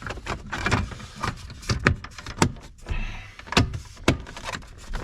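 Plastic dash trim being worked into place and snapped in: a string of irregular sharp clicks and knocks of plastic on plastic, the loudest a little before two and four seconds in.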